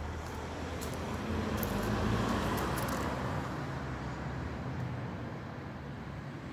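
Suzuki Bandit 1200's inline-four engine running steadily through an IXIL aftermarket exhaust, getting louder about two seconds in and then easing back.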